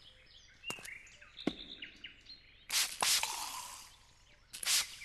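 Birds chirping, with a few sharp clicks, then two loud hissing bursts of noise about half a second long, one around three seconds in and one near the end.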